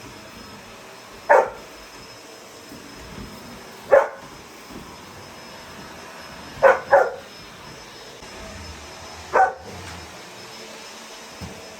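A dog barking five times at irregular intervals, two of the barks in quick succession. Under the barks runs the steady hum of a vacuum cleaner.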